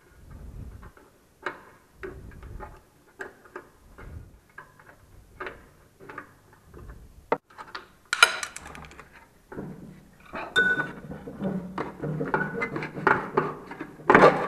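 Metal hand tools clinking and scraping on a scooter's front shock absorber as its top mounting nuts are worked loose: irregular sharp clicks and rattles, with a louder rattle about eight seconds in and busier clinking near the end.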